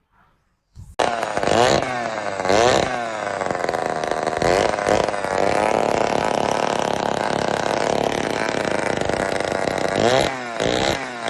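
Small two-stroke engine comes in suddenly about a second in and revs up and down several times, holding a steady high run in between revs.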